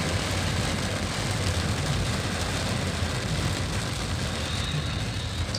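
Steady rushing noise inside a car cabin while driving in heavy rain: rain on the body and windscreen and tyres on the wet, flooded road, over a low rumble.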